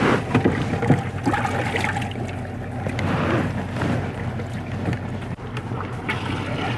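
Water splashing and sloshing in a bass boat's livewell as hands reach in among the fish, with knocks from handling near the start, over a steady low hum.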